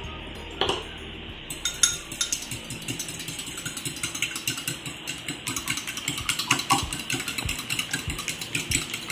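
Raw egg being beaten in a ceramic bowl with a metal fork: quick, irregular clinks of the fork against the bowl, starting about a second and a half in and going on throughout.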